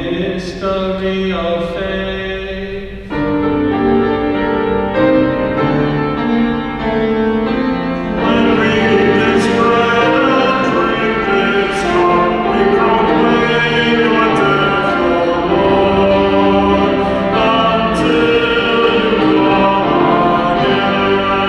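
A hymn sung with keyboard accompaniment: the offertory hymn at a Catholic Mass, sung notes held over chords, growing fuller about three seconds in.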